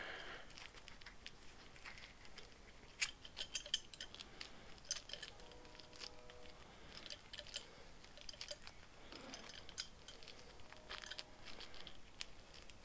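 Faint hand-handling noise from a tight, stretchy rubber grip sleeve being rolled up on itself: scattered small clicks and crackles throughout, with a couple of brief faint squeaks.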